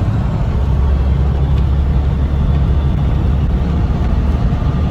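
Steady low rumble of a semi-truck's engine and road noise while driving, heard inside the cab.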